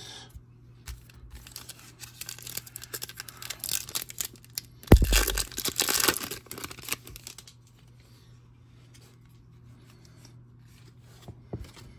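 A foil trading-card pack crinkling in the hands, then ripped open with a sharp tear about five seconds in, the wrapper rustling for a couple of seconds after.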